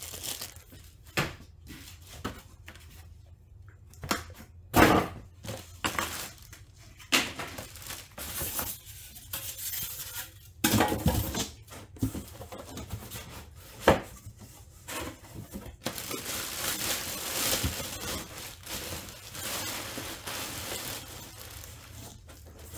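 Unpacking noise: plastic wrapping crinkling and rustling and cardboard packaging being handled, with scattered sharp knocks. A longer stretch of rustling comes about two-thirds of the way in.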